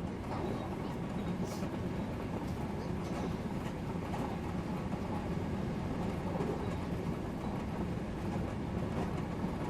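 Odakyu Line express train running along the track, heard from inside the car: a steady rumble of wheels on rail, with a few faint clicks.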